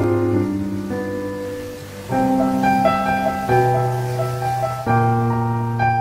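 Slow instrumental background music with held chords that change about every second and a half.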